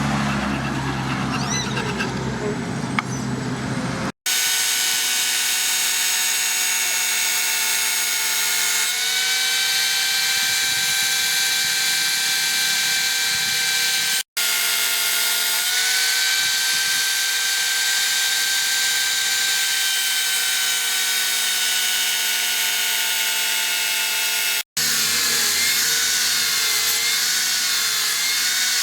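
Electric power tool running with a steady high whine, its pitch sagging slightly now and then as if under load. The run is broken by a few abrupt edit cuts, and a different, lower hum comes before the first cut.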